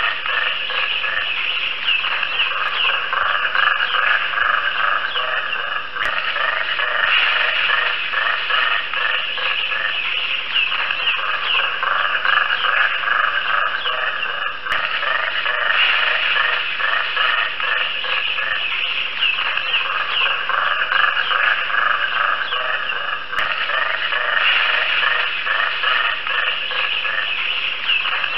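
A dense, unbroken chorus of rapid pulsed croaking calls from many animals, swelling and easing every few seconds.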